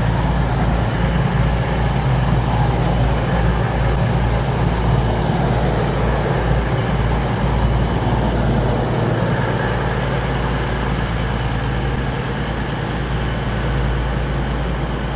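Class 222 Meridian diesel multiple unit running into the platform: a steady low rumble of its underfloor diesel engines and wheels on the rails, easing off slightly in the second half.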